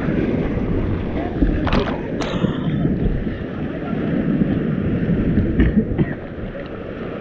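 Muffled, steady rush of whitewater in a river rapid around a capsized raft, broken by a few sharp splashes about two seconds in and again near the end.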